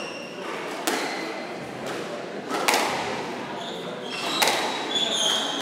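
Squash ball being struck and hitting the court walls: sharp echoing knocks every second or two. High squeaks of court shoes on the wooden floor come in during the second half.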